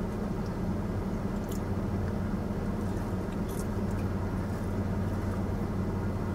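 Steady low hum of a parked car running, heard from inside the cabin, with a few faint light ticks.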